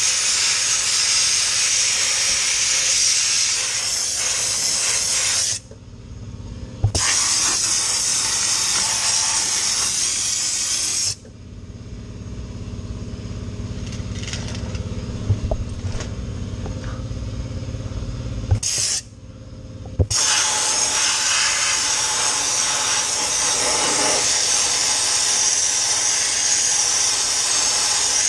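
Dry ice blaster nozzle blasting, a loud steady hiss of compressed air and ice. It stops briefly about five seconds in, then cuts out for several seconds in the middle, leaving a steady low hum and a few clicks, before the blasting resumes.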